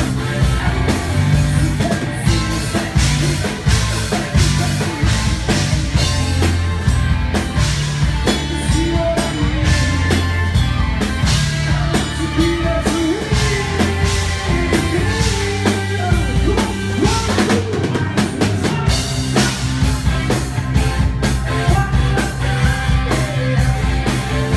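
A live band playing rock music on drum kit, bass guitar, electric guitar and keyboard, loud and continuous, with the drums prominent in a steady beat.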